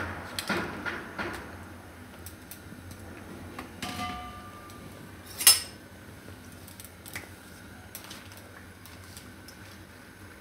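Spinach leaves settling into a pan of hot water, with soft rustling in the first second or so, then a low steady background. A single sharp metal clink, a spoon against the pan, about five and a half seconds in, with a few lighter clicks after it.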